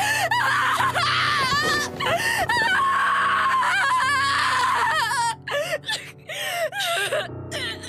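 High-pitched wailing and sobbing voices over sustained, mournful background music; the cries waver and rise and fall, breaking off every second or so.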